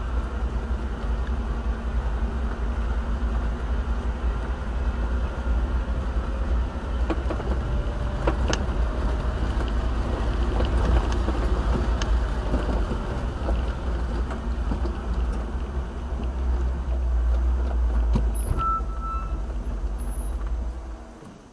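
Car driving, heard from inside the cabin: a steady low engine and road rumble that drops away sharply near the end.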